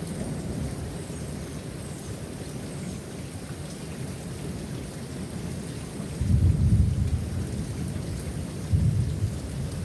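Steady rain falling, with two low rumbles of thunder: a longer one about six seconds in and a shorter one near the end.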